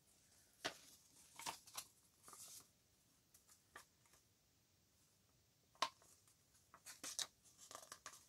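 A printed sheet of inkjet transparency film handled and folded in half by hand, giving faint, scattered crinkles and rustles.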